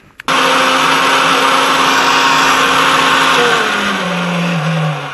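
RC boat's brushless motor and propeller run hard under throttle, a loud steady whine over rushing noise, drawing about 90 amps at roughly three-quarter throttle. Its pitch falls from about three seconds in as the throttle comes back, and it stops near the end.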